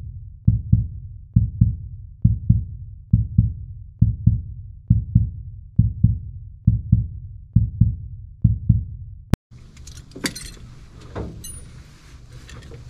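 Intro music made of low, doubled bass thumps like a heartbeat, about one pair a second. It cuts off suddenly about nine seconds in, and a few faint clicks and rustles follow.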